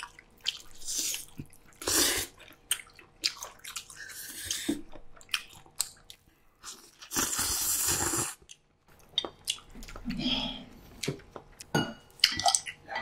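Close-miked eating sounds: cold spicy bibim-myeon noodles slurped up in several noisy pulls, the longest lasting about a second and a half midway, with wet chewing and smacking in between.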